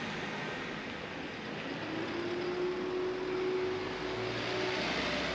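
City street ambience dominated by road-traffic noise. A steady drone comes in about two seconds in and holds for nearly three seconds, as a vehicle goes by.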